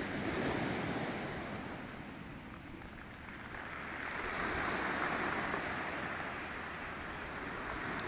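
Sea surf washing onto a stony beach, swelling twice, with some wind on the microphone.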